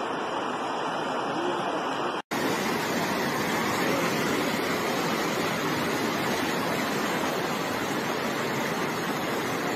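Floodwater rushing fast along a flooded street: a steady, dense noise of churning water. It drops out for an instant about two seconds in and carries on.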